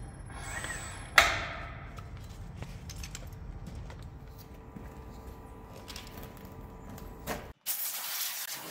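A single sharp metal clank with a short ring about a second in, over a low steady workshop hum. Near the end the hum cuts out and gives way to a brighter hiss.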